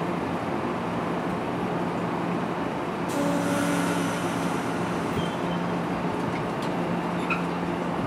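NJ Transit Multilevel commuter train standing at the platform: a steady low hum from the train, with a short hiss of air about three seconds in.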